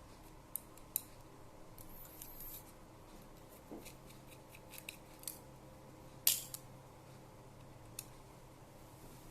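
Irregular small clicks and scrapes of hard plastic and metal parts being handled, with one sharper click a little past the middle.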